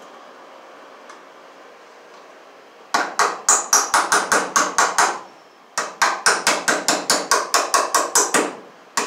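Rapid, regular sharp clicks, about five a second, from a tool fastening a blue plastic electrical box to a wooden rafter. They run for about two seconds, stop briefly, run again for nearly three seconds, and one last click comes near the end.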